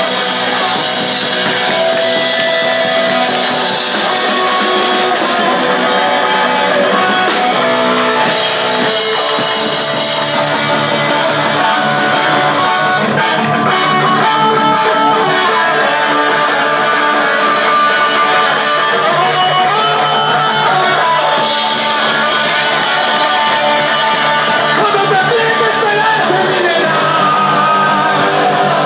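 Punk rock band playing live at full volume, guitars to the fore, the music loud and unbroken.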